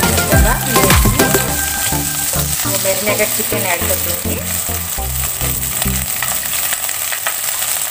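Sliced onions sizzling and frying in hot oil in a pressure cooker. A steel spoon stirs them and scrapes against the inside of the pot.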